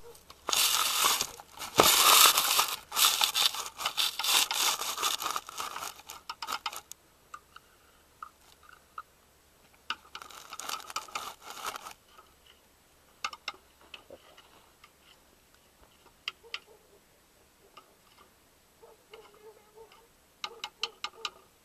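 Loud rustling and clicking of something being handled close to the microphone, in a long stretch of several seconds, again for about two seconds midway, then only scattered clicks and light taps.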